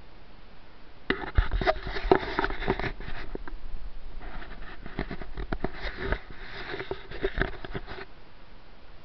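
Close rustling and crackling right at the microphone, in two spells of a few seconds each, full of small sharp clicks.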